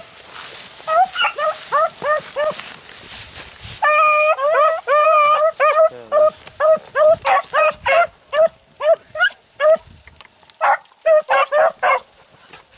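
Rabbit-hunting beagles barking and baying at close range on a cottontail in the brush. There is a long drawn-out bay about four seconds in, then a quick run of short, yelping barks.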